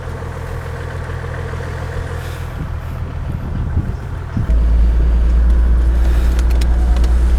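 Motor vehicle engine running steadily during a boat launch. About four and a half seconds in, a much louder, deeper rumble sets in and holds.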